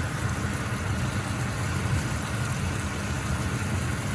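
Chopped chicken breast sautéing in olive oil in a pan on medium heat, a steady low rumbling noise with a fine sizzle over it.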